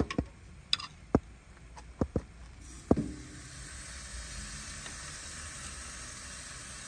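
Metal tongs clicking against a kamado grill's grate several times, then a ribeye steak laid on the hot grate starts sizzling about three seconds in, a steady hiss.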